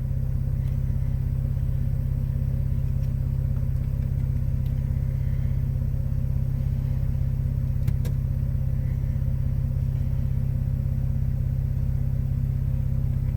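BMW 325i (E90) straight-six engine idling steadily, a constant low hum, with a single click about eight seconds in.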